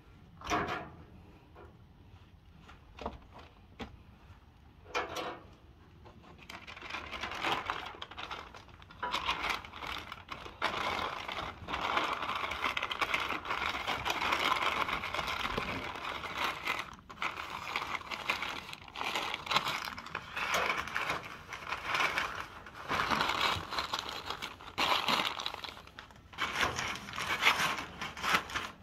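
Butcher paper being handled and spread out, crinkling and rustling in a long, uneven stretch from about six seconds in. A few sharp clicks come before it.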